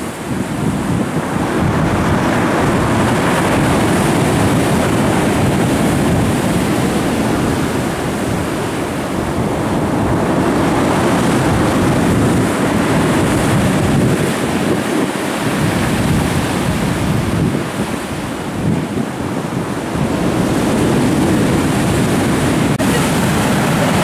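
Storm surf on the Black Sea: waves breaking and churning into foam in a loud, continuous wash that swells and eases slowly, with wind buffeting the microphone.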